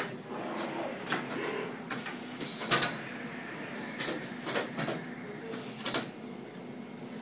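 Steady hum of a screen-printing conveyor dryer running, broken by about nine sharp clicks and knocks.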